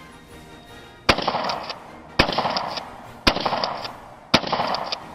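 Remington 870 20-gauge pump-action shotgun fired four times in quick succession, about a second apart, each shot followed by a short echo.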